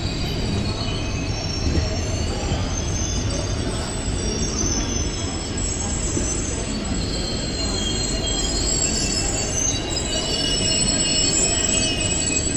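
Passenger express train pulling out of a station, heard from aboard: a steady rumble of wheels on rail with high-pitched wheel squeal that wavers and comes and goes.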